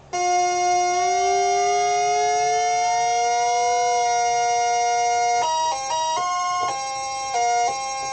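Realistic MG-1 analog synthesizer by Moog holding a two-oscillator tone while oscillator 2 is detuned: one pitch slides slowly upward over the first few seconds against the steady pitch of oscillator 1. From about five seconds in, a quick series of notes steps up and down on the keyboard.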